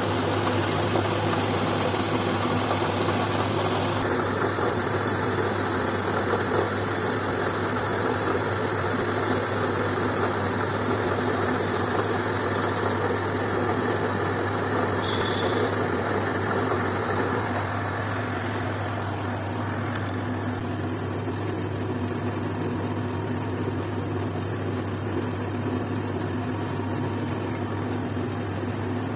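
Metal lathe running steadily with a low motor hum, its tool cutting metal on the spinning workpiece. The sound gets slightly quieter partway through.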